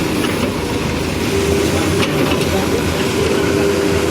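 JCB backhoe loader's diesel engine running steadily under work, with an even low rumble and a steady mid-pitched tone over it.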